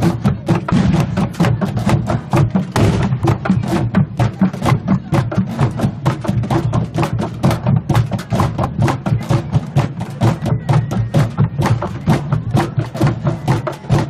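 Street drum band of bass and snare drums playing a fast, even beat of sharp strikes, several a second.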